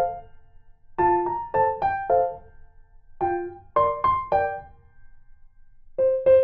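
Background music: a piano plays short phrases of three or four quick notes, each phrase followed by a brief pause.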